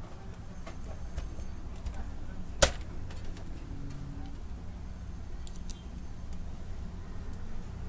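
Small clicks and taps of a screwdriver and loose parts on the metal frame of a disassembled Brother DCP-T710W inkjet printer, with one sharp click about two and a half seconds in, over a steady low hum.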